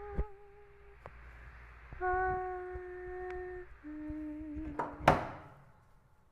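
Slow ambient music: a few soft, flute-like held notes follow one another, each about a second and a half long with a slight wobble as it ends, over a low hum with scattered faint clicks. About five seconds in, a sharp burst of noise is the loudest sound, and it dies away into near silence.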